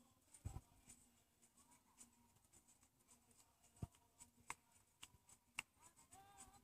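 Near silence with a few scattered faint clicks and taps. Near the end a faint pitched sound with a bending pitch begins.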